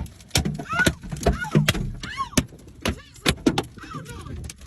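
Large hailstones striking a car's body and glass in irregular, loud bangs, several a second.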